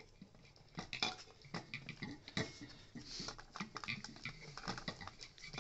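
Hard plastic parts of a Dyson soft roller cleaner head clicking and knocking against each other as they are handled and fitted together by hand: a run of irregular light taps and rattles.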